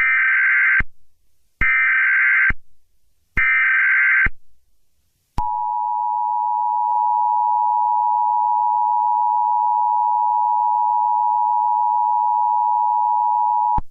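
Emergency Alert System tones: three short bursts of warbling SAME header data, then the steady two-tone attention signal held for about eight seconds, the signal that opens an emergency broadcast.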